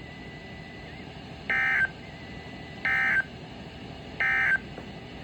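Emergency Alert System end-of-message data tones: three short, buzzy bursts of SAME digital tones, each about a third of a second and about a second and a half apart, marking the end of the alert.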